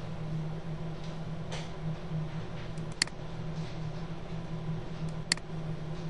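Two sharp computer-mouse clicks, about three seconds and about five seconds in, over a steady low hum.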